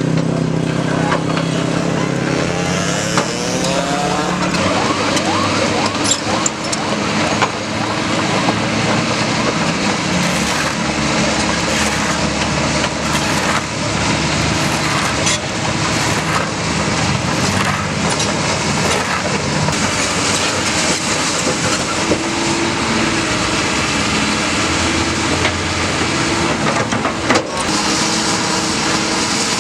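Komatsu PC200 hydraulic excavator's diesel engine running steadily under load, with a short rise in pitch a few seconds in and a few scattered knocks.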